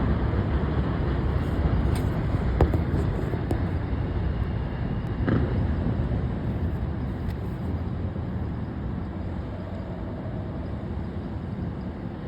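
Steady low background rumble of outdoor noise, slowly fading, with a couple of soft knocks in the first half.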